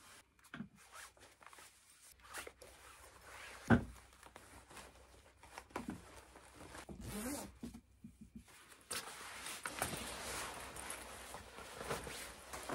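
Clothing rustling and a zipper as someone dresses and handles things, with a long padded down coat being put on and fastened in the last few seconds. A single sharp thump a little under four seconds in.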